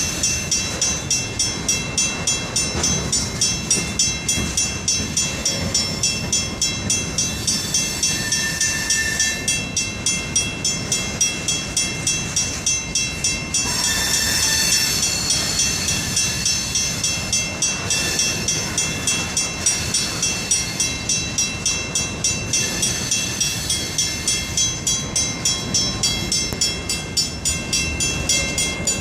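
Freight train cars rolling past, their wheels clacking over rail joints in a steady rhythm of about two and a half beats a second. High, thin, steady ringing tones sit above the clacking and swell louder about halfway through.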